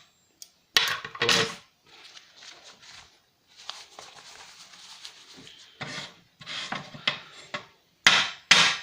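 A freshly cast silver-solder loaf ingot being knocked out of its metal mould: two sharp knocks, a few seconds of scraping, then more knocks and clatter.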